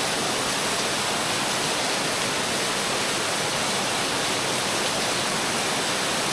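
Rain-swollen waterfall pouring down a sandstone bluff: a steady, hiss-like rush of falling and splashing water with little low rumble.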